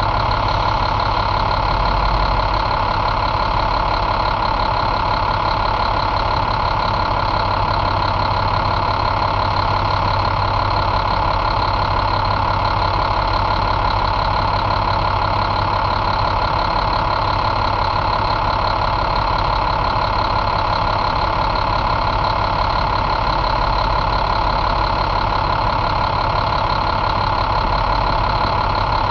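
2010 International MaxxForce DT inline-six turbo diesel idling steadily.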